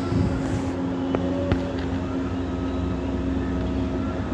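Steady low mechanical hum of a running machine, with a couple of light clicks about a second and a second and a half in.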